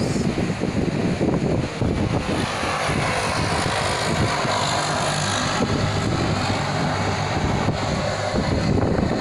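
Wind buffeting the phone's microphone from a moving vehicle, over a steady low engine hum and road noise.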